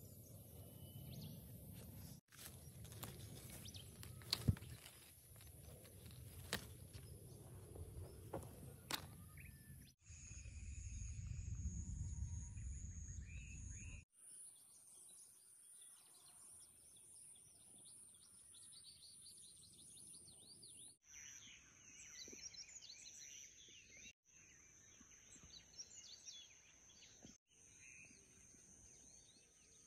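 Outdoor garden ambience: steady high-pitched insect trilling with bird chirps over it, changing abruptly several times. A few sharp clicks and a low rumble in the first half.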